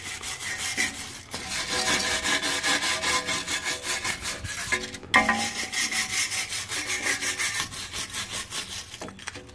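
Hand wire brush with steel bristles scrubbing heavy rust off a rear parking-brake backing plate and hub, in quick back-and-forth strokes with a short pause about halfway through.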